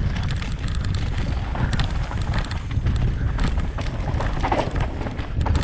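Wind buffeting a helmet-mounted microphone during a fast mountain-bike descent, a steady low rumble, with clicks and rattles from the bike and its tyres running over a dirt trail.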